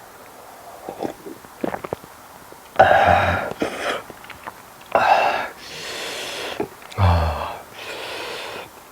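A man's loud breathing and exhaling, with several short voiced grunts or burp-like sounds, while he eats.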